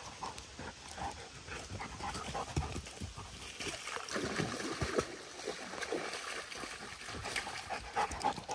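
Dogs moving through brush and undergrowth on a trail: irregular rustling, crackling and footfalls among leaves and twigs, with dog sounds mixed in.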